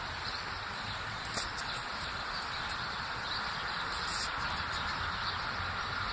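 Steady outdoor background noise with two short high chirps, one about a second in and one about four seconds in.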